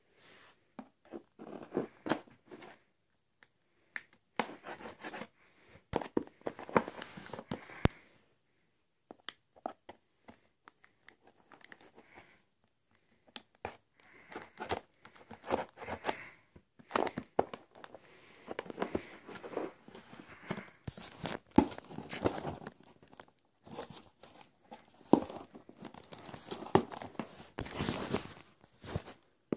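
Cardboard Dell laptop box and its packing being opened and handled: tearing, crinkling and rustling in irregular bursts, with sharp clicks between them.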